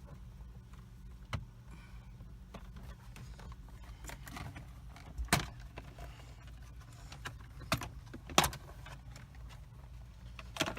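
Scattered sharp clicks and clinks of small metal parts and tools being handled, about six in all, the loudest a little past the middle, over a steady low hum.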